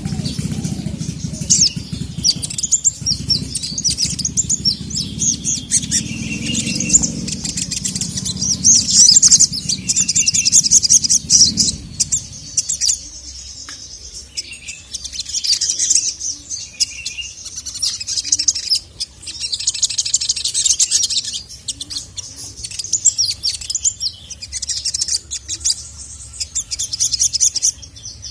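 Sogok ontong (sogon) sunbird singing: fast, high, rattling chirps and trills in repeated bursts, over a low rumble that fades out about twelve seconds in.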